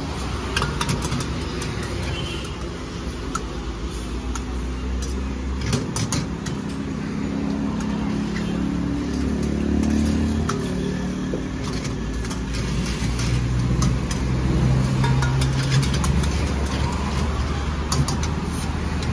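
Road traffic: engines of passing vehicles rise and fade over a steady low rumble, one climbing in pitch around the middle. Scattered sharp clicks run through it.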